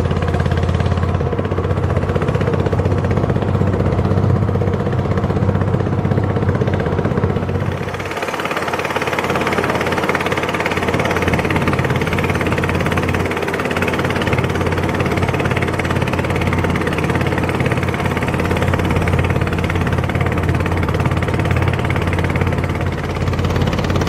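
Motorboat engine running steadily while a long wooden boat travels at speed, with the rush of its wake. About eight seconds in the deep low hum lessens and a broader hiss of engine and water takes over.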